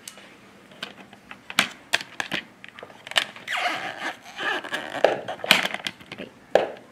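Scattered plastic clicks and knocks as a hubcap is handled, pressed and snapped onto a ride-on toy car's plastic wheel, with a few scraping rubs in the middle.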